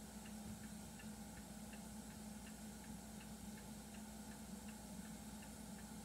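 Faint, even ticking, about three ticks a second, alternating between a higher and a lower click, over a low steady hum.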